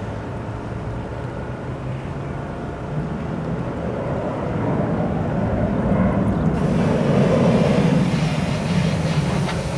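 Jet engine noise of a twin-turbofan Cessna Citation 650 business jet on takeoff: a steady rumble that grows louder from about four seconds in and peaks near the end, with a sharper hiss joining suddenly about two-thirds of the way through.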